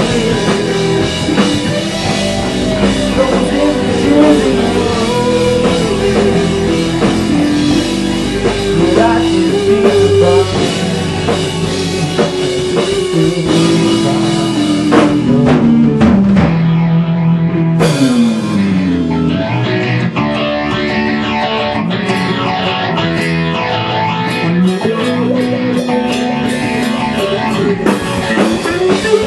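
Indie rock band playing an instrumental passage, with electric guitars, keyboard and drum kit together. About sixteen seconds in the cymbals and high end drop away for a couple of seconds, then the full band comes back in with a falling slide.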